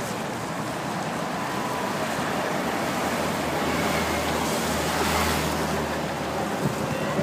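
Steady wash of roadside noise from a waiting crowd and wind. A low engine hum rises in the middle from an approaching police escort motorcycle.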